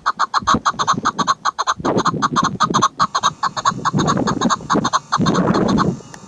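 Female chukar partridge calling: a fast, even run of sharp clucking notes, about seven a second, that stops near the end. Bursts of low rushing noise sit underneath at times.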